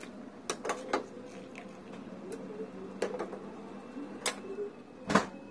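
Metal ladle clinking against the side of a stainless steel saucepan of boiling wontons: a handful of sharp taps, irregularly spaced, the loudest near the end, over a steady hum.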